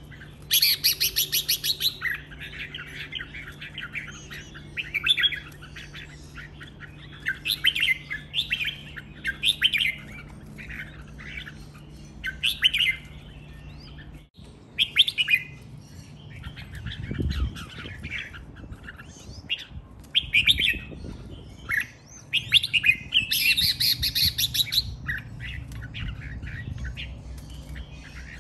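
Red-whiskered bulbul singing in quick, clear repeated phrases. Louder, higher chattering bursts come just after the start and again about twenty-three seconds in.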